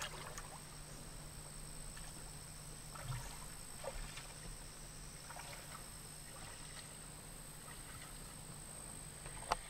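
Faint outdoor ambience with a thin, steady high whine and a low hum, broken by a few soft clicks and knocks and a sharper click near the end.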